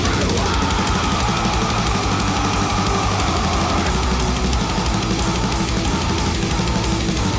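Heavy metal music with drums and guitar, an instrumental passage without vocals.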